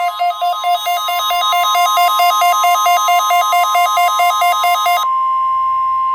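NOAA Weather Radio warning alarm tone, a steady high 1050 Hz tone, from a Midland WR120EZ weather radio during the weekly alarm test. For the first five seconds a fast two-pitch warbling alarm pulses over it, about five times a second, then stops, leaving the steady tone alone.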